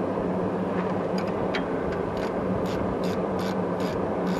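Ratcheting gear wrench on a 16 mm sway bar link nut, clicking in short strokes about two or three times a second from around two seconds in, over a steady low hum.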